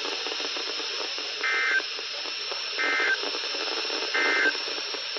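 NOAA Weather Radio receiver hissing with static, broken by three short bursts of SAME digital data tones about 1.3 s apart: the end-of-message code that closes a broadcast.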